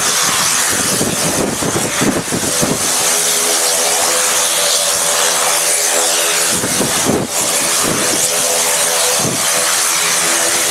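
Honeywell (Garrett) turboprop engine of a Turbo Otter running steadily on the ground, its propeller turning with a constant hum and hiss. Gusts of strong wind buffet the microphone a couple of times.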